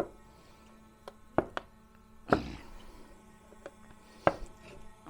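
A handful of short, sharp knocks and clicks from objects being handled and set down, the strongest about two seconds in, over a faint steady hum.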